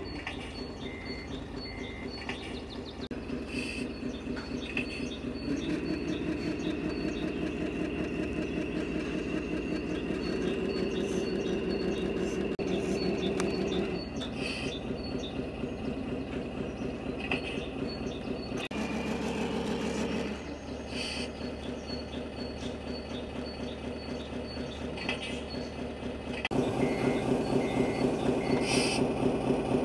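Simulated diesel truck engine from a radio-controlled MAN scale truck's electronic sound unit, running and revving with the throttle: louder several seconds in and again near the end. Short high electronic beeps come and go over it.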